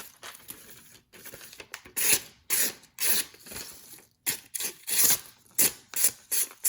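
Pocketknife blade slicing through paper in a string of quick, scratchy strokes, with a short pause in the middle: an edge test after sharpening.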